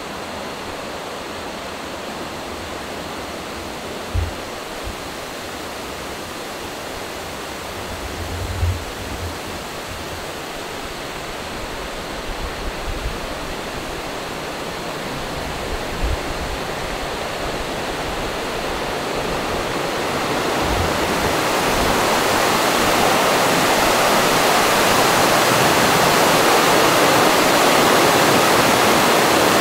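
Rushing white water of a fast mountain stream tumbling down a stone-lined channel, swelling from about two-thirds of the way through until it fills the sound. A few soft low thumps in the first half.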